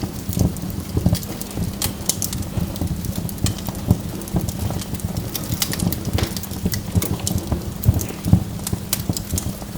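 Burning logs crackling in a wood fire: irregular sharp snaps and pops, several a second, over a low steady rumble of the flames.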